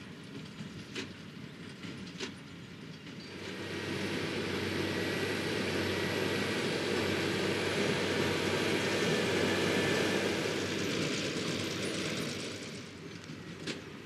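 Fendt 820 Vario tractor and New Holland BigBaler 1270 running while baling hay: at first sharp knocks about a second apart over the machinery, then the running noise swells as the rig comes close, and fades again near the end.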